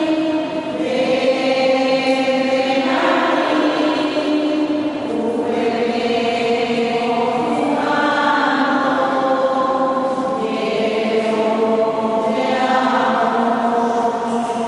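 Choir-like voices holding long sustained notes together, shifting to a new chord every two to three seconds, with an eerie, chant-like sound.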